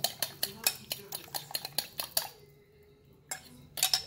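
A fork beating raw eggs in a glass bowl, clicking rapidly against the glass about six times a second. The beating stops a little over two seconds in, and a couple of louder clinks follow near the end.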